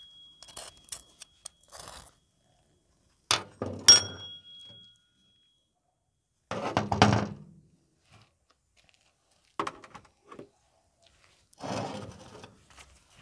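Metal scooter variator parts handled on a steel workbench: light clicks, then two sharp metallic knocks about three and a half and four seconds in, the second with a brief ring. Scraping and handling noises follow, as the greasy roller housing and its cover are picked up and turned over.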